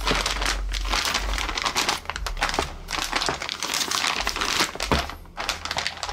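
Clear plastic parts bag crinkling as it is handled and turned over, an almost continuous crackle with a brief lull about five seconds in.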